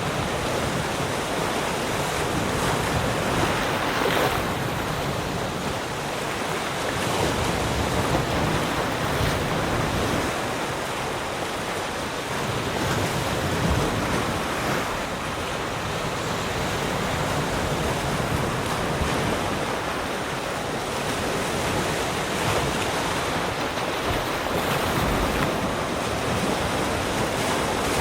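Sea surf: waves breaking and washing in continuously, the rush swelling and easing every few seconds.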